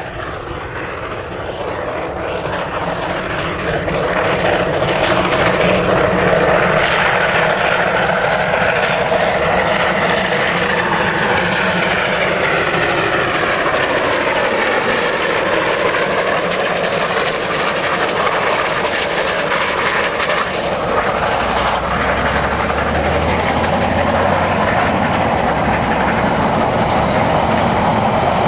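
Steam locomotive hauling a passenger train, growing louder over the first few seconds as it approaches and then running past close by. Its carriages roll by on the rails near the end.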